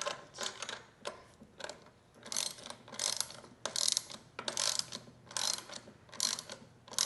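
Ratchet wrench worked back and forth in short repeated strokes on a bolt, its pawl clicking, about two to three strokes a second.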